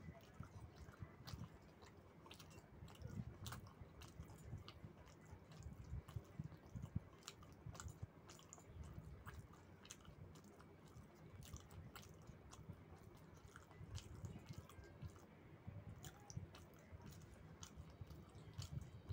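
A person chewing food, quietly, with scattered small clicks and smacks of the mouth.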